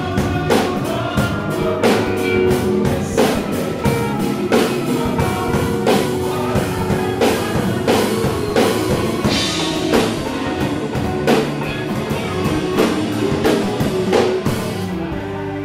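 A rock band playing: a drum kit keeping a steady beat under electric guitar and held keyboard chords. The drums stop just before the end, leaving the chord ringing.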